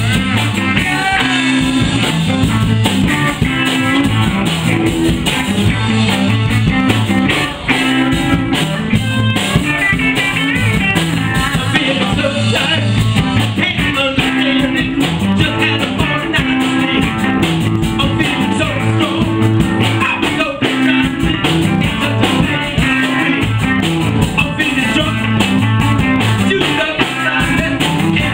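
Live rock band playing with electric guitars, bass, drums and horns, and a man singing lead.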